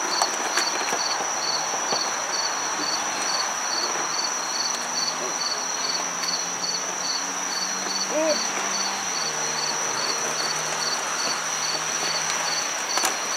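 Insects in trees and grass: one keeps up a steady high buzz while another chirps evenly about three times a second.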